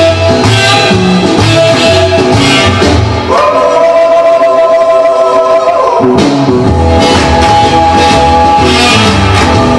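Rock and roll record playing loud: guitar over a steady bass beat, with a long held chord from about three to six seconds in, during which the bass drops out.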